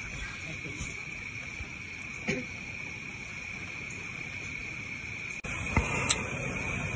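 Steady high-pitched drone of insects in the woods, with a few faint short knocks about two seconds in and near the end.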